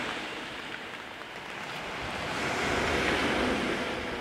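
Small Black Sea waves breaking and washing over a pebble beach, the surf swelling to a peak about three seconds in, with a low rumble of wind on the microphone.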